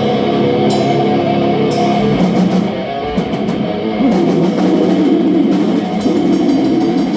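Death metal band playing live: heavy distorted guitars with a drum kit. There are cymbal crashes in the first couple of seconds and fast cymbal strikes near the end.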